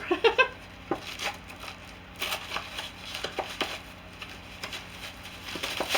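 Packaging and items being handled: scattered rustling and crinkling with light clicks and knocks, louder about two seconds in and again near the end.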